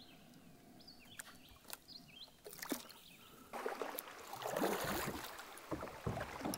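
Kayak paddle strokes splashing and swishing through calm river water, starting abruptly about halfway in and continuing at a steady level. Before that, faint drips and small clicks on quiet water.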